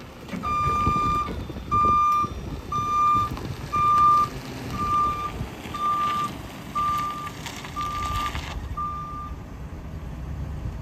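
Backup alarm on a 2011 Ford F-250 service truck beeping about ten times, roughly once a second, as the truck reverses, over the low sound of its engine running. The beeps stop about nine seconds in.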